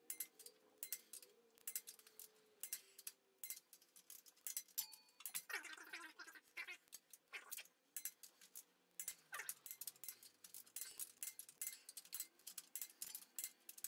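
Ratcheting torque wrench tightening the main bearing cap bolts of a 5.3 LS engine block, a long run of faint quick ratchet clicks. This is the final pass to 55 ft-lbs.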